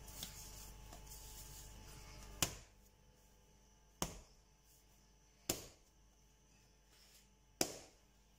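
Bread dough being kneaded by hand on a granite countertop: four sharp slaps as the dough is thrown down onto the stone, starting about two seconds in and coming every one and a half to two seconds.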